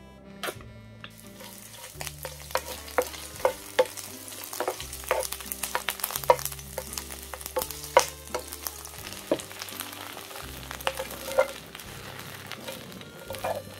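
Hot oil sizzling in a nonstick frying pan as chunks of green onion are stir-fried, with a wooden spatula knocking and scraping against the pan. Sliced shiitake mushrooms go in near the end. The sizzle starts about a second in, over soft background music.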